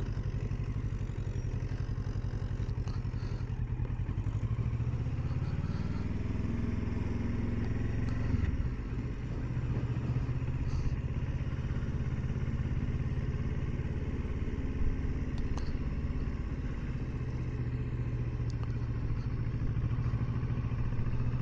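2020 Kawasaki Versys 650's parallel-twin engine running steadily at low speed as the motorcycle rolls along. The engine note lifts a little about four seconds in and drops back about eight seconds in.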